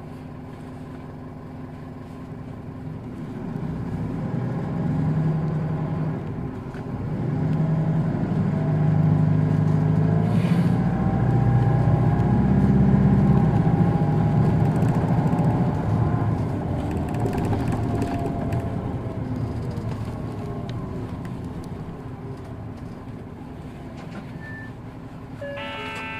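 Hino Poncho city bus's diesel engine heard from inside the cabin. It pulls up through several gear changes, getting louder for about ten seconds, then eases off and gradually quietens as the bus cruises and slows.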